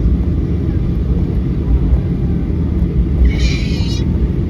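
Cabin noise inside a Boeing 737-800: a loud, steady low rumble from its CFM56-7B engines and airframe. A brief high-pitched sound cuts in for about half a second a little over three seconds in.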